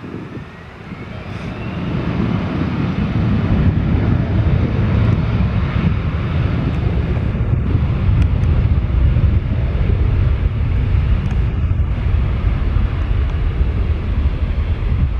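Embraer E175's two GE CF34-8E turbofan engines spooling up to takeoff thrust: a whine rising in pitch over the first two seconds, then a steady loud jet noise with a deep rumble as the airliner accelerates down the runway.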